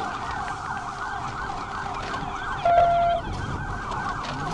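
Police patrol car siren sounding a fast yelp of about five rising-and-falling sweeps a second. About two and a half seconds in, a loud, steady horn tone sounds for about half a second over it.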